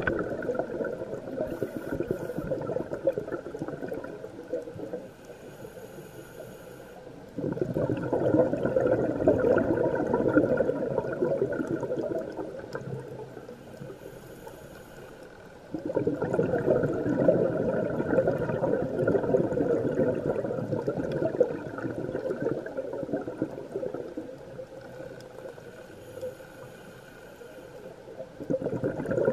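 Scuba regulator underwater with the diver's exhaled bubbles gurgling in long bursts of about four to six seconds, coming roughly every eight seconds. Quieter pauses between the bursts fall where the diver breathes in.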